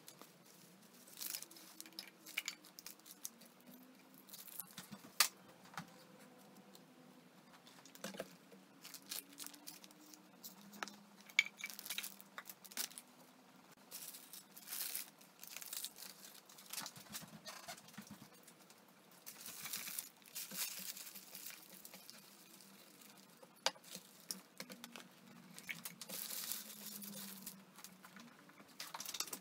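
Items being picked up and moved off a cluttered bedside table: plastic bottles, a bowl and papers clattering and tapping, with crinkling and rustling. The handling comes in irregular bursts, with longer stretches of rustling about 20 and 26 seconds in.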